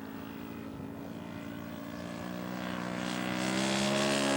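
Engine of a radio-controlled scale model Waco on its takeoff run, running at high power and growing steadily louder as it comes closer. Its pitch rises slightly about two seconds in.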